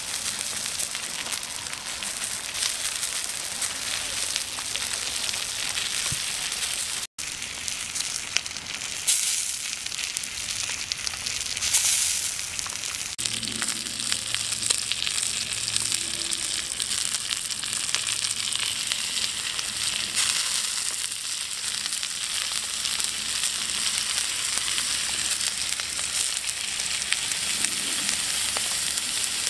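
Fish roe sizzling on a hot rock, a steady crackling hiss, with a brief dropout about seven seconds in.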